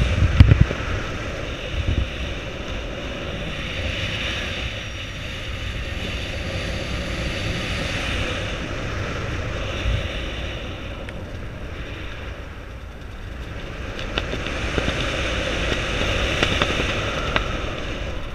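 Wind rushing over an action camera's microphone during a descent under an open parachute canopy, swelling and easing, with a few dull knocks near the start and about ten seconds in.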